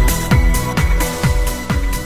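Electronic background music with a steady kick drum beat, about two beats a second.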